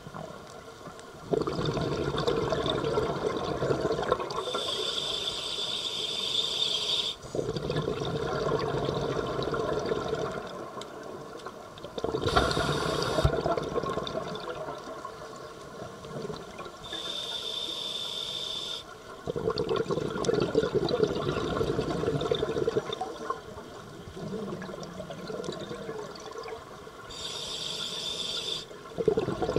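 Scuba diver breathing through a demand regulator underwater. Each hissing inhalation of about two seconds is followed by a longer, bubbly rush of exhaled air from the exhaust valve, and the cycle repeats every several seconds.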